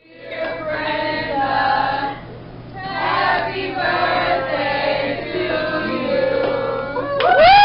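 A group of voices singing together, choir-like, over a steady low hum. About seven seconds in, a louder, wavering voice cuts in.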